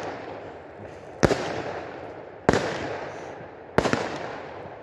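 Fireworks display: three loud bangs of bursting shells, evenly spaced about a second and a quarter apart, each trailing off in an echoing rumble.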